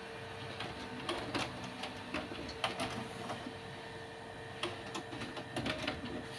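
HP Color LaserJet Pro MFP M176n colour laser printer running a test print: a steady hum, with two spells of rapid clicking and clattering from the paper-handling mechanism, about a second in and again near the end.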